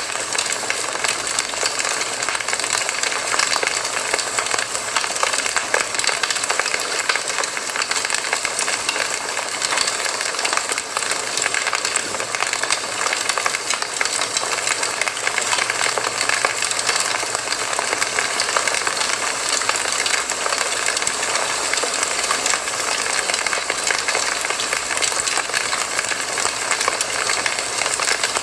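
Campfire crackling steadily: a dense run of small pops and snaps over a constant hiss.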